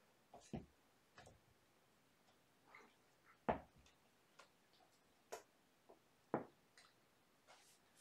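Faint scattered taps and knocks, about ten at uneven intervals, two of them louder: kittens playing with and batting their toys around the room.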